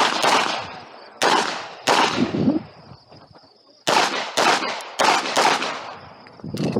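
Handgun shots fired in a rapid string, about ten in all, mostly in quick pairs with short pauses between the groups. Each crack trails off in an echo.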